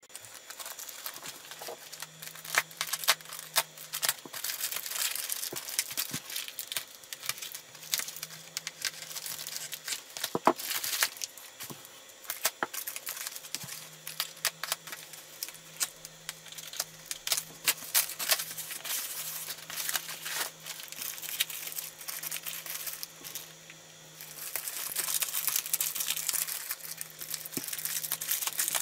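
Plastic postal mailer crinkling and rustling as it is handled, cut with scissors and torn open, with many sharp snips and clicks. Near the end, a clear plastic bag crinkles steadily as it is handled.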